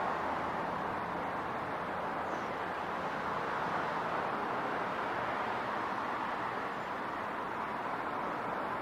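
City traffic noise: a steady, even rush of passing vehicles that swells and eases slowly, with no single event standing out.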